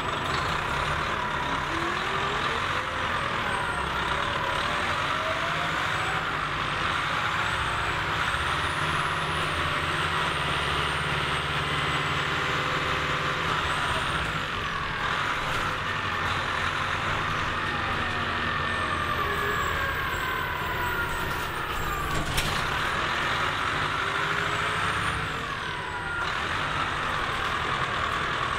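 Orion V transit bus's diesel engine running as the bus drives, with whines that rise and fall in pitch over a steady low rumble, heard on board. A sharp click about three quarters through.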